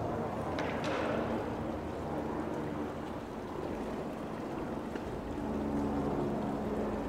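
Steady outdoor town ambience heard while walking: a wash of noise under a low steady hum, with a couple of sharp clicks about a second in.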